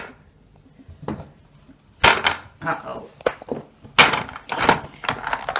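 Small plastic toy figures clattering and knocking together in a plastic toy wrestling ring shaken by hand. The clatter starts about two seconds in and grows denser near the end.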